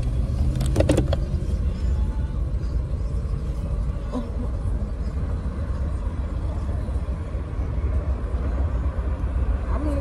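Steady low rumble of a car's engine and cabin, heard from inside the car, with a few sharp clicks about a second in.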